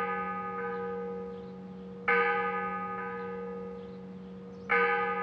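A church bell rung by rope, its strokes coming about every two and a half seconds: one about two seconds in and another near the end, each ringing on and slowly fading, over the dying ring of a stroke struck just before.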